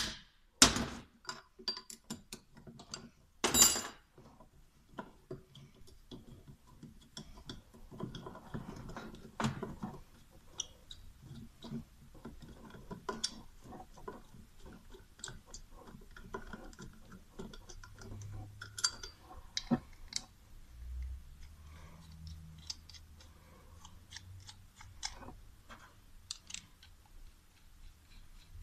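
Scattered metal clinks, taps and knocks of hand tools and parts as a diesel turbocharger's fittings are unbolted and lifted off by hand. There are two louder knocks in the first few seconds, then lighter clicks.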